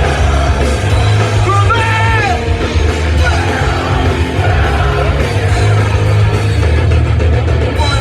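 Hardcore punk band playing live, with distorted guitars, drums and a sung and shouted lead vocal. The mix is heavy and boomy in the bass, the poor sound of the stage backline.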